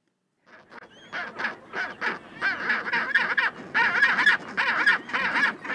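A penguin colony calling: many short, overlapping calls with a wavering pitch, following one another several times a second, starting about half a second in.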